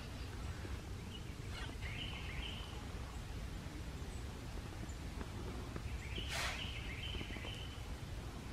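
White-tailed deer snorting twice, short noisy blows about two seconds in and again near six seconds, the second one stronger: the alarm blow of a doe disturbed by a person nearby.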